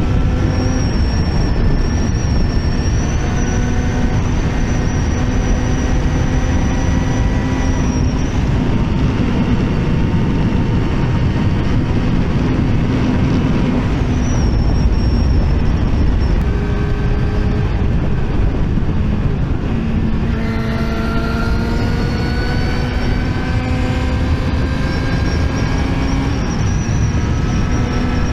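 Yamaha YZF-R6's inline-four engine running at road speed under heavy wind rush. Its pitch climbs slowly and drops back at gear changes, about sixteen and twenty seconds in.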